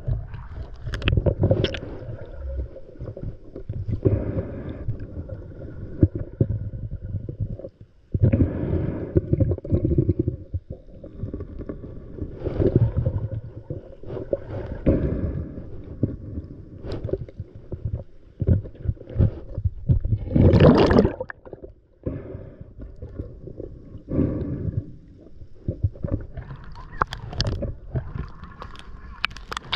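Muffled underwater sound of a scuba diver breathing through a regulator, with exhaled bubbles gurgling in bursts every few seconds; the loudest burst comes about two-thirds of the way in.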